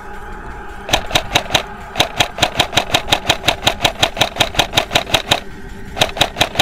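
Tokyo Marui P90 High Cycle airsoft electric gun firing full-auto in bursts, a rapid string of clicks: a short burst about a second in, a long burst of about three seconds, and another starting near the end.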